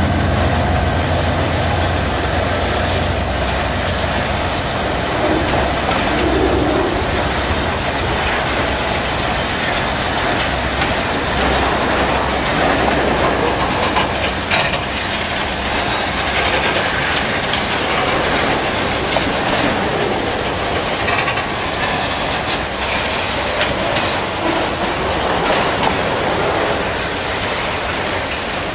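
Freight train of autorack cars rolling past at close range: a steady rumble and clatter of steel wheels on the rails, with a thin high wheel squeal. The diesel locomotives' engine hum fades out in the first second.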